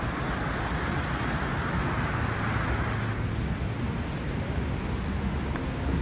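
Street traffic: a car passes with tyre hiss that swells and fades about three seconds in, over a steady low rumble of road noise.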